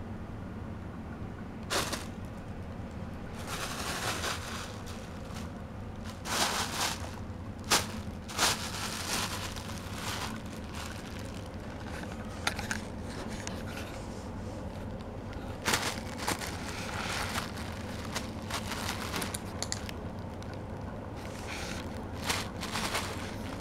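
Thin plastic shopping bag crinkling and rustling in irregular short bursts as a kitten burrows into it and paws at it, over a steady low hum.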